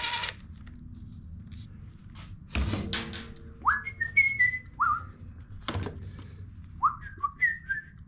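Someone whistling a few short notes that slide upward, in two little runs, between the sounds of hand-tool work: a brief clatter about two and a half seconds in and a sharp metal knock near the six-second mark.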